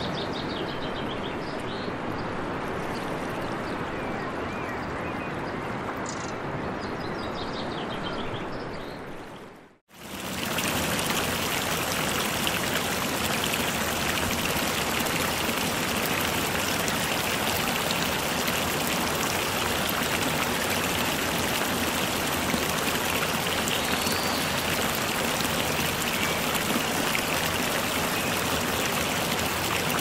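Running water: a steady rush with faint high chirps over it, which cuts out for a moment about ten seconds in and gives way to a louder, denser, even hiss of water.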